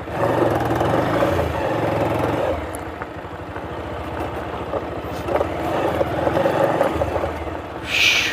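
Motorcycle engine running as the bike rides slowly over a rough dirt track, its note rising and falling with the throttle: louder at first, easing off through the middle, then picking up again. A short hiss comes near the end.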